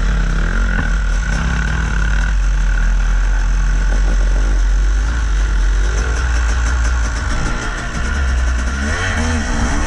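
Yamaha YZ250 two-stroke dirt bike engine running steadily on the trail, its revs rising and falling briefly near the end.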